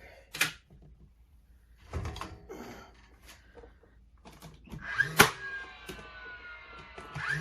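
Sharp strikes as cedar ceiling planks are nailed up: one about half a second in and a louder one about five seconds in, with duller knocks from handling the boards in between. A ringing tone that slowly falls in pitch lingers after the second strike.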